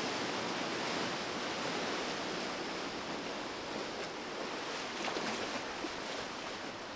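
Rushing, churning water of a speeding Formula 45 yacht's wake washing through the canal, slowly fading as the boat pulls away.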